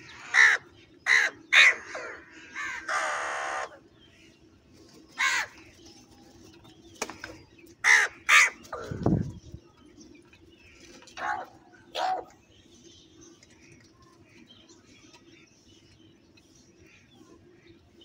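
House crows cawing, a run of loud, harsh single caws with one longer drawn-out call about three seconds in. The calls thin out and stop after about twelve seconds.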